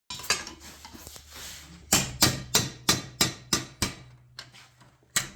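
Hammer blows on a warped steel body panel, about three a second, each with a short metallic ring, starting about two seconds in, easing off briefly and resuming near the end. The sheet metal is being hammered to straighten warping caused by the metal stretching and shrinking.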